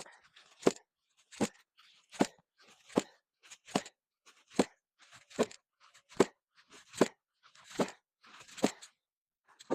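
Axe chopping into a log: a steady run of about a dozen sharp, crunching strikes, a little more than one a second.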